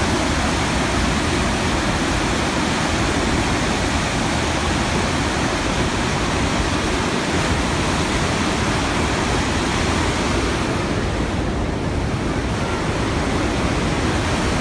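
Heavy whitewater rushing through a dam spillway: a loud, steady roar of churning water.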